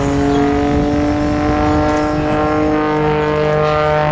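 Christen Eagle aerobatic biplane's 180-horsepower engine and two-bladed propeller droning steadily through a looping maneuver, its pitch shifting slightly.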